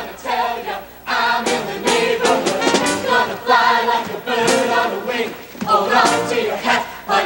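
Mixed show choir of male and female voices singing together in harmony, in phrases broken by short breaths about a second in and again near the end.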